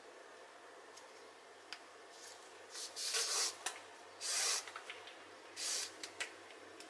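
Yarn drawn through the bag's fabric with a sewing needle during hand-stitching: three short scratchy pulls, about three, four and a half and nearly six seconds in, with a few light clicks of the needle.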